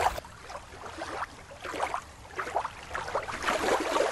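Sea water sloshing and slapping in uneven bursts.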